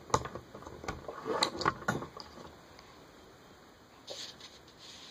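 Hands clipping a paracord bracelet onto a wrist: rubbing and rustling of cord and hands with a few sharp clicks from the buckle in the first two seconds, then light handling noise about four seconds in.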